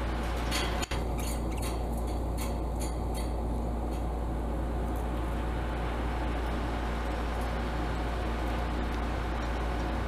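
A budgie's beak tapping at its cage toys and wire: a string of light clinks, about three a second, in the first few seconds, over a steady low room hum.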